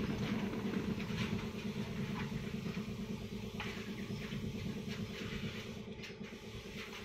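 Steady low motor hum, with scattered light rattles and scratches of hands and claws on a wire-mesh cage as a siamang and a sun bear cub wrestle.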